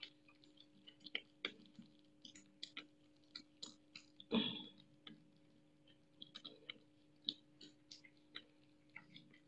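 A young otter chewing a catfish head: faint irregular wet clicks and crunches as it bites and gnaws, with one louder, longer sound about four seconds in.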